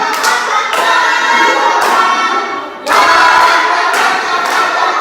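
A group of voices singing together in chorus, with claps or thumps struck in among the singing; the singing breaks off briefly just before the three-second mark and starts again.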